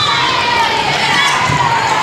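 Many high young voices shouting and cheering together, overlapping.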